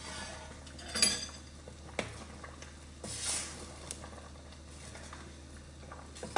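A few scattered clinks and ticks of a metal utensil against a cooking pot, with a short scraping stir about three seconds in.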